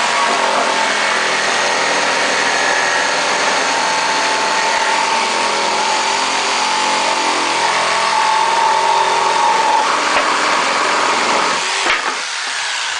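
Electric jigsaw running steadily as it cuts a hole through wood, its motor whining, then shut off about twelve seconds in.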